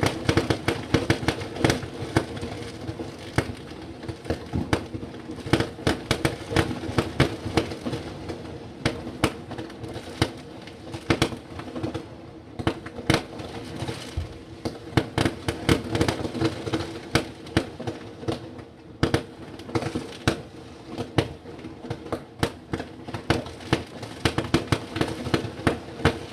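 Fireworks going off in a dense, irregular barrage of sharp bangs and cracks, several a second, over a steady low hum.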